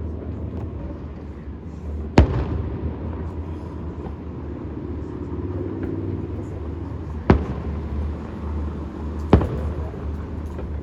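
Fireworks going off: three sharp bangs, about two seconds in, about seven seconds in and two seconds after that, each with a short echo, over a steady low rumble.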